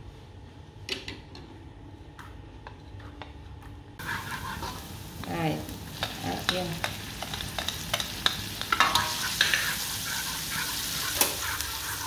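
Chopped garlic, shallots and chili dropped into melted butter in a non-stick wok start sizzling about four seconds in. Through the sizzle, chopsticks and a metal spoon click against the pan as the mix is stirred.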